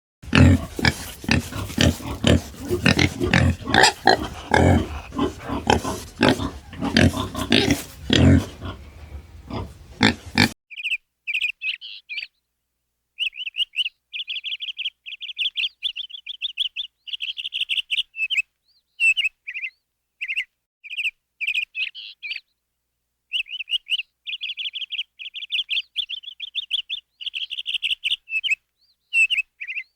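Animal calls: about ten seconds of harsh, noisy calls that stop abruptly, then runs of quick, high chirps in rapid series with short pauses between them.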